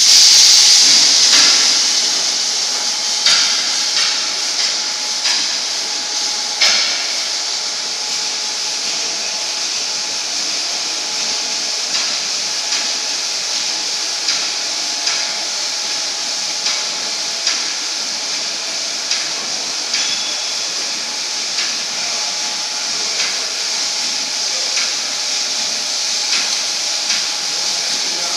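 Motor-driven pipe welding turning roll running: a steady hiss with a faint motor whine from its electric gear-motor drive, and light knocks repeating about once every second.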